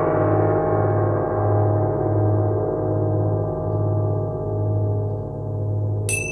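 Soundtrack music: a long, gong-like ringing chord fades slowly over a pulsing low drone. Just before the end, a new high bell-like tone begins.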